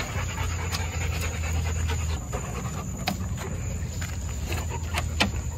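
A Labrador retriever panting, over a low steady rumble, with a few light clicks.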